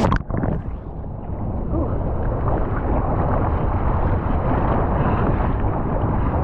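A splash of water hits the camera right at the start and the sound drops away briefly. Then a steady rush of wind on the microphone runs on, mixed with choppy sea water washing around a kayak.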